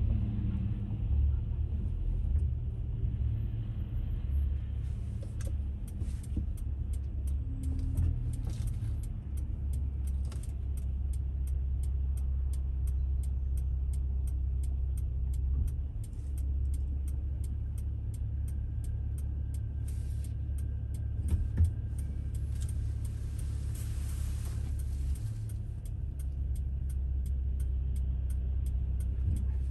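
Car idling at a standstill, a steady low engine rumble heard from inside the cabin, with a fast, even ticking through most of it.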